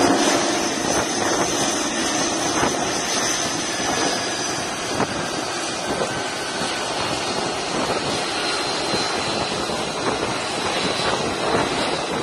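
Single Pratt & Whitney F135 turbofan of an F-35C Lightning II running as the jet taxis on a carrier flight deck: a steady jet engine noise with a faint high whine, loudest at the start and then settling.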